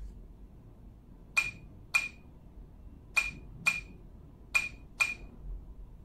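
Fingerprint door lock keypad beeping once per key press as a password is typed in: six short beeps, coming in three pairs about half a second apart.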